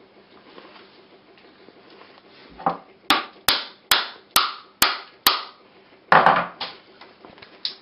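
A claw hammer tapping a coconut's hard shell held in the hand, cracking the shell away from the white flesh. There is a duller knock, then six quick, sharp taps about two a second, then a heavier knock near the end.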